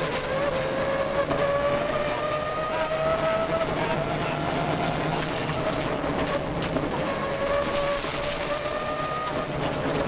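Subaru Impreza 555 Group A rally car's turbocharged flat-four engine heard from inside the cabin, pulling hard under load. Its pitch climbs slowly over the first few seconds, settles a little lower, then drops near the end. Scattered sharp clicks from the rough road surface run through it.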